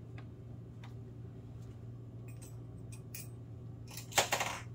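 A steady low hum under a few faint ticks, then a short, loud rustle about four seconds in.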